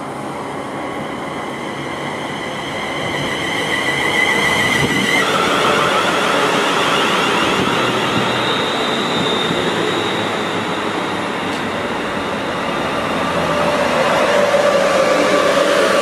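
London Northwestern Railway Class 350 Desiro electric multiple unit running along the platform, its electric traction motors whining with tones that shift pitch in steps. It grows louder about four seconds in as it draws alongside.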